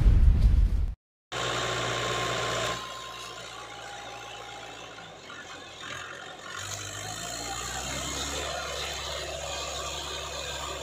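The end of a channel intro's boom in the first second, then, after a brief gap, a Mahindra 575 DI tractor's diesel engine running under load as it strains to pull a heavily loaded sugarcane trailer that is stuck. About six and a half seconds in, the engine's low hum gets deeper and a little louder.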